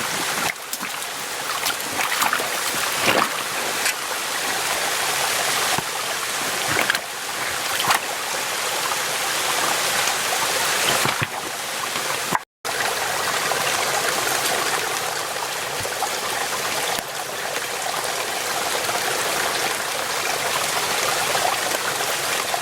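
Small mountain stream running: a steady rush and babble of water. It cuts out for a moment about halfway through.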